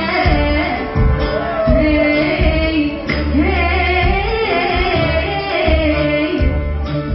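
Women's voices singing a melody with a live ensemble of strings and piano over a repeating heavy low beat.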